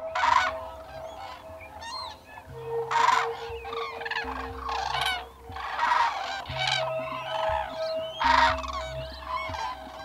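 A flock of common cranes calling: many overlapping trumpeting calls, with four louder ones spread through. Sustained notes of background music run underneath.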